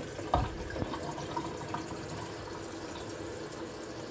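Kitchen tap running into a stainless steel kettle held under the faucet, a steady rush of water. A single knock about a third of a second in.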